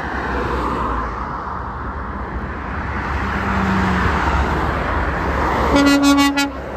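Road traffic passing close by, cars and a light truck going past with tyre and engine noise. Near the end an approaching lorry gives one short blast of its horn, a loud, even-pitched tone lasting under a second.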